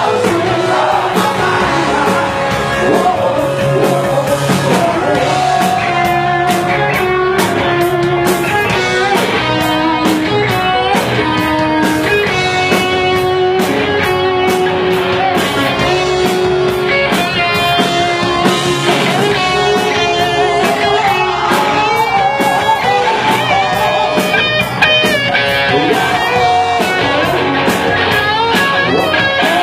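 Rock band playing live through a PA: electric guitar and singing over a steady drum beat.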